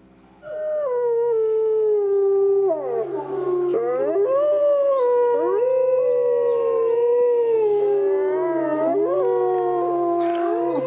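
A pack of wolves howling together, starting about half a second in: several long overlapping howls, each gliding slowly up and down in pitch and crossing the others.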